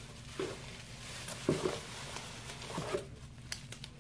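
Packing material rustling inside a cardboard shipping box as items are lifted out by hand, with three soft knocks, the loudest about halfway through.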